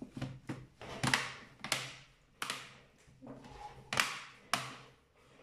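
Plastic clips of the ASUS X540L laptop's case snapping into place as the case is pressed shut: a series of sharp clicks at irregular intervals, about five of them loud.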